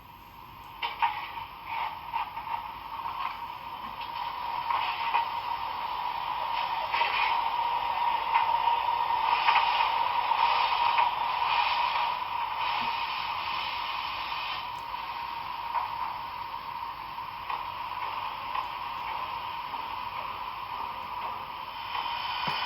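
HO-scale model steam locomotive running along the track: a steady mechanical whir of motor and gears with many small wheel clicks. It grows louder over the first ten seconds or so, then slowly fades.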